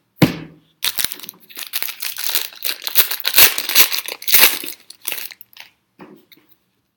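Foil trading-card pack wrapper being torn open and crumpled in the hands: dense crinkling for about four seconds, which fades out near the end. A single thump comes just after the start.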